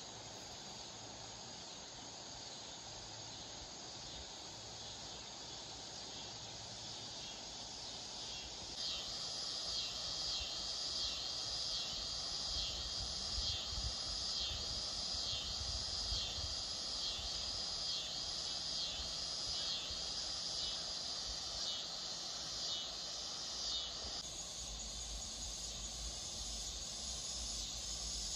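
Insects chirping in a rhythmic run of calls, about one and a half a second, starting about a third of the way in and stopping sharply near the end, over a steady outdoor hiss.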